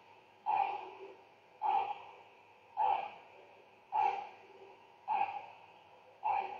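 Forceful breaths through the nose, six in a row about a second apart, each starting suddenly and fading, in time with the belly being pumped in and out during a hatha yoga abdominal-pumping breathing exercise.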